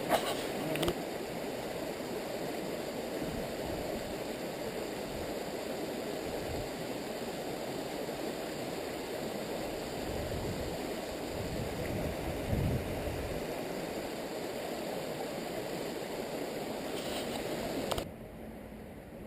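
Stream water running steadily over rocks, with a couple of sharp knocks in the first second. About 18 seconds in it cuts off abruptly to a quieter background with a low steady hum.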